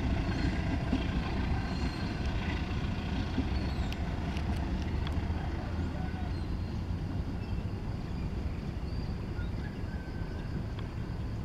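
Diesel-electric engine of a CC 201 locomotive running under load with a steady low rumble that slowly fades as the train pulls away.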